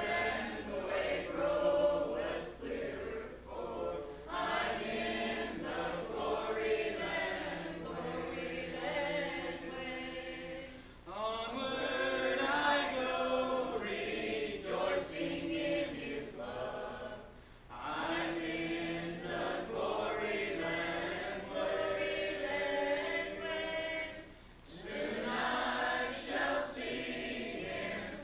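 Church congregation singing a hymn a cappella, in long phrases with brief breaths between them.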